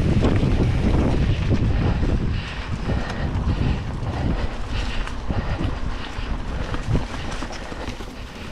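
Mountain bike riding down a dirt singletrack strewn with leaves: wind buffeting the action camera's microphone and the tyres rolling over dirt. It is heaviest for the first two seconds, then eases, with a few sharp clicks and rattles from the bike.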